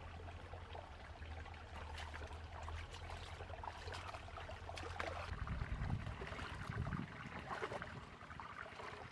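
Shallow rocky stream trickling, with splashes and sloshing as a clay pot is lifted out of the water and carried while wading; a few low thuds come a little past halfway.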